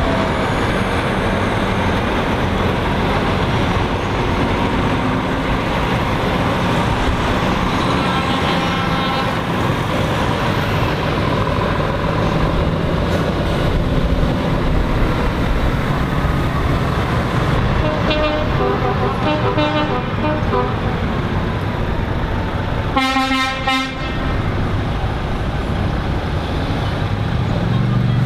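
Lorry tractor units driving past in a convoy, their diesel engines running, with truck air horns sounding several times, the loudest blast about 23 seconds in.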